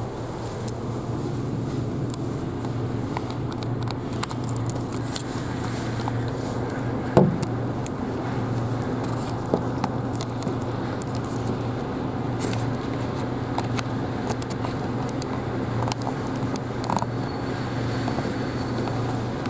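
Cabin running noise of an Isuzu Erga Hybrid city bus: a steady low hum with small rattles and clicks from the body. One short loud knock about seven seconds in.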